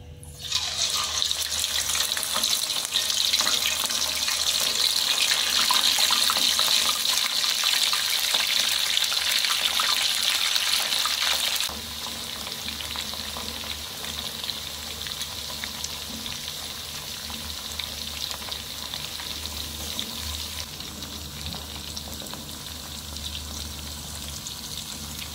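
Spice-coated python skin pieces deep-frying in a wok of hot oil: a loud sizzle and crackle starts suddenly about half a second in as they go into the oil. About twelve seconds in it drops abruptly to a quieter, steadier sizzle.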